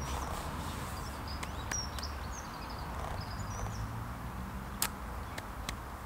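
Outdoor ambience: a steady low rumble of distant road traffic, with faint small-bird chirps from about a second and a half to three and a half seconds in. A few short sharp clicks come through, the loudest near the end.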